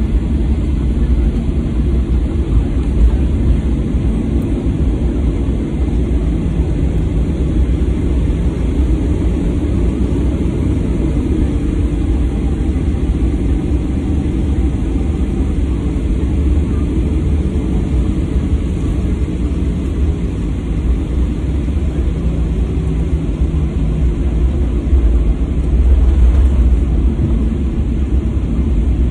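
Boeing 737-800's CFM56 turbofan engines at taxi power, heard from inside the cabin as a steady low rumble while the airliner rolls along the taxiway. The rumble swells briefly near the end.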